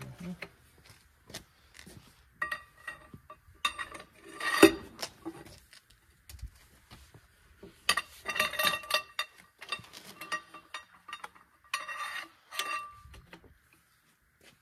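Wrench and metal cheater pipe clinking against each other and the bolts of a Farmall tractor's steel rear wheel hub as loosened wheel bolts are worked off. Irregular metal clinks with brief ringing, in clusters, the loudest about four and a half seconds in.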